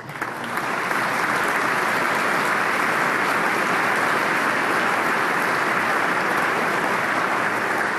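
Large audience applauding: many hands clapping together, building over about the first second and then holding steady.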